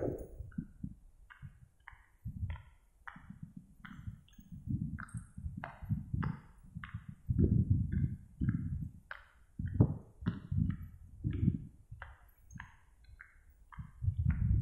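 Footsteps crunching on a dry dirt path, about two to three steps a second, with wind rumbling on the microphone in gusts.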